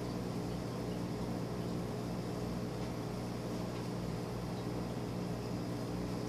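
Aquarium pump running: a steady low electrical hum with a hiss over it.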